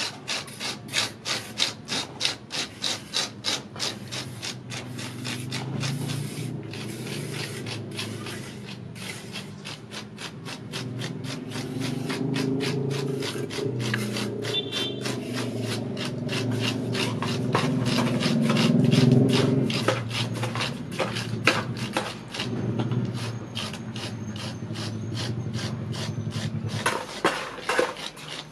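Repeated scraping strokes of a gloved fingertip rubbed over wet cement render, texturing a faux stone wall, about two or three strokes a second. A low rumble builds through the middle and cuts off suddenly near the end.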